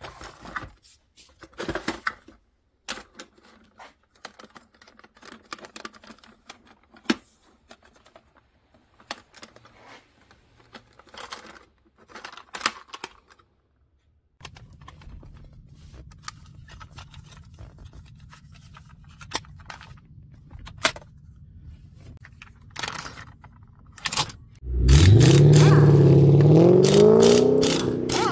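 Plastic cassette tape cases clicking and rattling as they are pulled from the drawers of a wood-grain cassette storage box. About 25 seconds in, a much louder intro sound begins whose pitch rises and then levels off.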